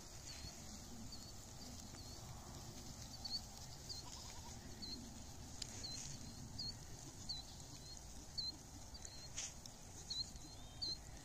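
Quiet pasture sound: a bird repeats one short chirp every second or so over a low steady rumble, with faint animal calls from the ibex herd.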